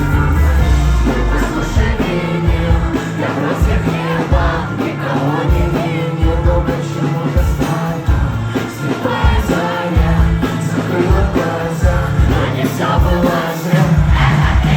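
Live rock band playing the song with a singer's vocals over drums and guitars, loud.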